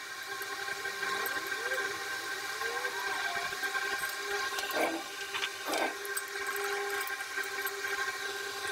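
A steady hum made of several held tones, with two sharp metallic clinks about a second apart near the middle as replacement tooth pockets are handled on the stump grinder's steel cutter wheel.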